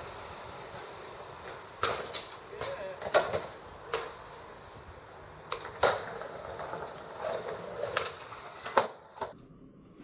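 Skateboard on a stone-tiled patio: wheels rolling, with sharp clacks of the board hitting the ground scattered through, a few close together and the loudest about three and six seconds in.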